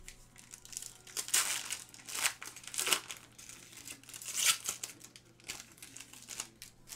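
Foil wrapper of a trading card pack being crinkled and torn open by hand, in a series of uneven bursts, the loudest about a second and a half in and again around four and a half seconds in.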